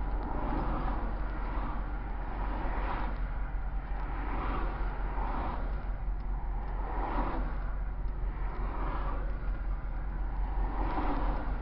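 Freeway traffic passing close by, several vehicles swishing past one after another over a steady low hum.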